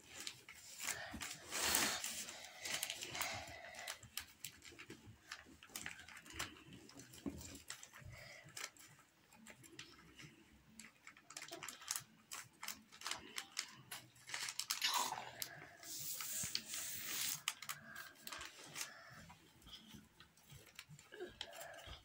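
Sheet of paper crinkling and rustling as it is folded and creased by hand into an origami flapping bird, in irregular crackles with louder bursts about two seconds in and again around fifteen to seventeen seconds in.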